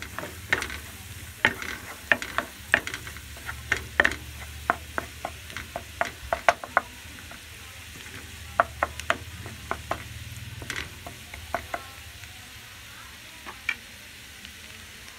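Chopped garlic sizzling in butter in a nonstick frying pan on low heat as it cooks toward golden brown, stirred with a wooden spatula that taps and scrapes the pan in quick sharp clicks. The clicks come thick for the first several seconds, then thin out to a few, leaving the sizzle and a steady low hum underneath.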